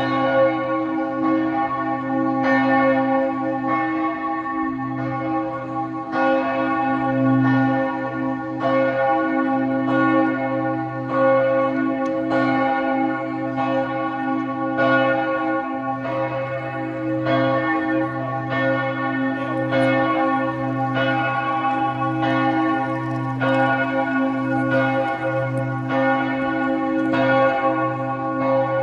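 Bells of St. Michael's Church (Michaelerkirche), Vienna, ringing in a continuous peal: strokes about once a second, overlapping and blending over a steady lingering hum.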